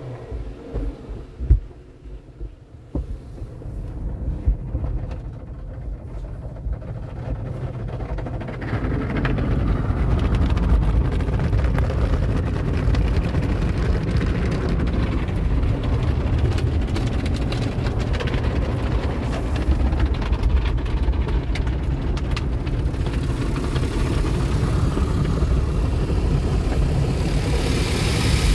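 Peco tunnel car wash heard from inside the car: cloth brushes and wraps scrubbing over the windshield and body with a heavy rumble, after a few knocks and a quieter start, building up about eight seconds in. Near the end a hiss of water spraying onto the car rises.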